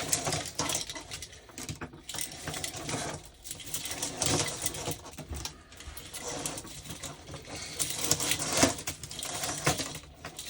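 Old Christmas light sets being rummaged through and handled in a box: bulbs and wiring clicking and rattling against each other irregularly.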